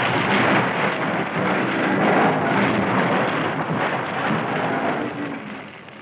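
Sound effect of a barrage of explosions: a loud, dense crackling rumble that cuts in suddenly, holds, and dies away near the end.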